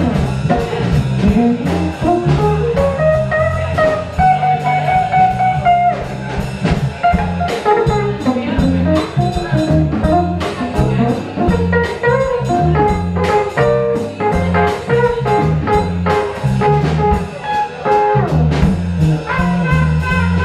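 Small jazz combo playing an up-tempo swing tune: electric bass and drum kit keeping time under electric guitar, with a trumpet playing the melody line.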